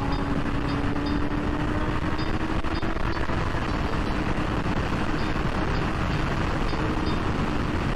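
Yamaha R6's inline-four engine through an Akrapovic full exhaust, running at high revs with its note rising slowly as the bike accelerates. Heavy, steady wind rush on the microphone at speed largely covers the engine.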